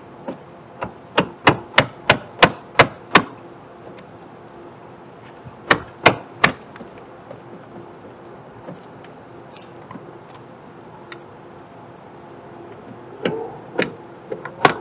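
Hard plastic Infiniti Q50 tail light housing knocking against the car body as it is worked loose by hand. A quick run of sharp knocks, about three a second, then three more a few seconds later and a few near the end.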